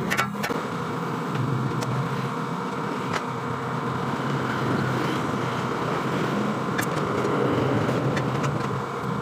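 A steady mechanical running noise throughout, with a few light metal clicks as steel side panels and bolts are handled on a generator radiator.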